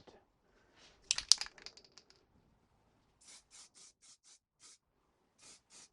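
A quick clatter of small knocks, then a run of short scratchy strokes, about three a second with a brief pause: a paintbrush dabbing black paint onto a steel wheel hub.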